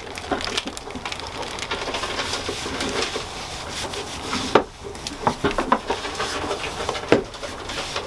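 Rubbing and handling noises with scattered sharp knocks and clicks while a portable milking machine's plastic teat cups and tubing are handled at a goat's udder; the loudest knocks come about four and a half seconds in and near seven seconds.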